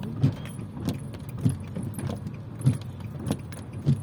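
Inside a car: sharp clicks or thumps repeating evenly about every 0.6 seconds over a steady low engine hum.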